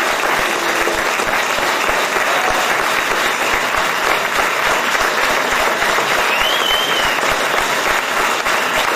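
A large audience applauding steadily, a dense mass of many hands clapping.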